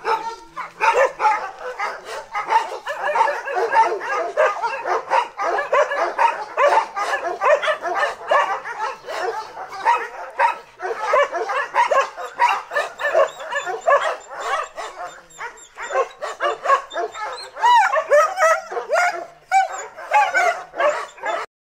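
Dogs barking and yapping over one another in a continuous clamour, mixed with whimpers and a few whining calls that bend in pitch; it cuts off suddenly near the end.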